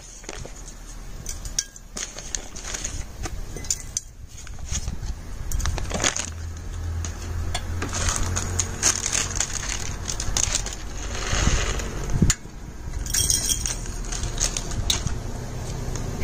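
Dried bay leaves and black peppercorns dropped into an empty glass jar, ticking and clinking against the glass in scattered clicks, with the crinkle of the paper spice packet.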